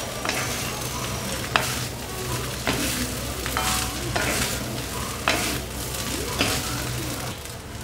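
Prawn fried rice sizzling in a hot pan while a spatula stirs and tosses it, scraping against the pan about once a second.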